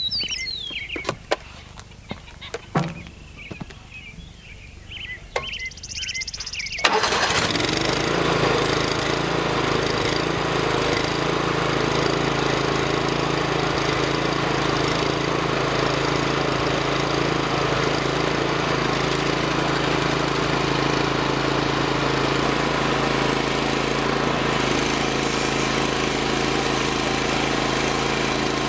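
A few clicks and knocks, then about seven seconds in the portable band sawmill's engine starts abruptly and settles into a steady, even run.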